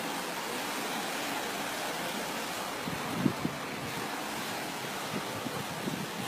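Steady outdoor noise of wind and small lake waves breaking along a rocky shore, with a couple of brief wind buffets on the microphone about three seconds in.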